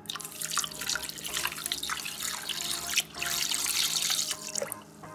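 Milk pouring in a stream into a stainless steel Thermomix mixing bowl, splashing into the liquid already in it. The pour breaks off for a moment about three seconds in, then comes back louder and fades out near the end.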